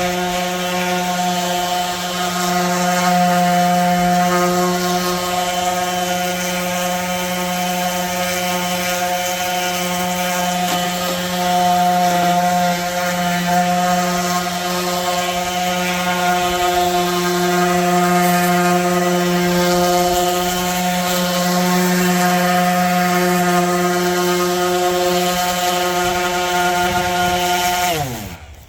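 Electric sander running steadily against wooden table boards, its motor hum holding one pitch over the hiss of abrasion, then switched off near the end, its pitch falling quickly as it spins down.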